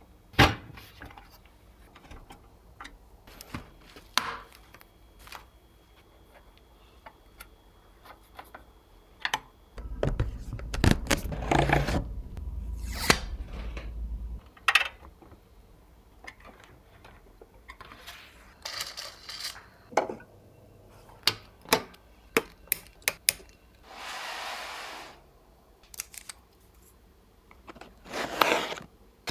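Computer parts being handled and fitted together during a PC build: a run of sharp clicks, taps and knocks of plastic and metal. From about ten to fourteen seconds in, a denser stretch of handling comes with a low rumble. About twenty-four seconds in there is a short hiss of rustling or sliding.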